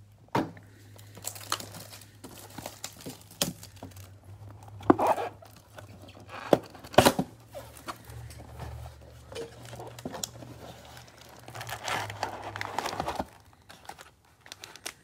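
Cardboard trading-card box being torn open and its cellophane-wrapped card packs handled and pulled out: irregular tearing, crinkling plastic and sharp cardboard clicks.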